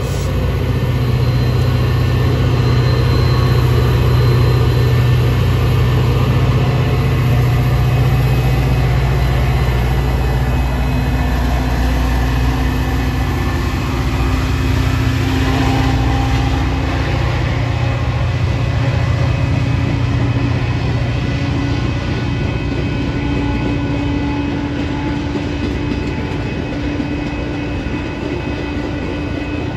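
Metra F40PH-2 diesel locomotive and its bilevel passenger coaches passing close by: a steady heavy rumble of the diesel engine and wheels on the rails, easing slowly as the train goes by.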